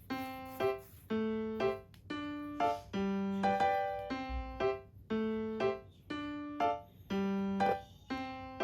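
Background music: a light keyboard tune of short, evenly paced notes in a repeating phrase.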